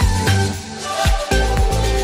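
Upbeat electronic background music with a steady beat of about four strokes a second. It thins out briefly around the middle.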